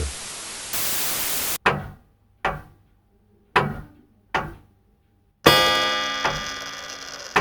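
A short burst of radio-style static, then a piano-like musical sting: four separate struck notes about a second apart, each dying away quickly. Then a bright chord rings out and fades over about two seconds, with one more strike near the end.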